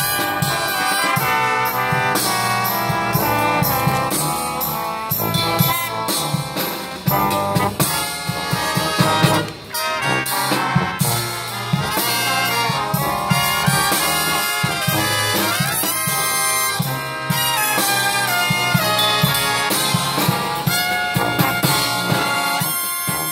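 A marching brass band with sousaphones playing a tune live.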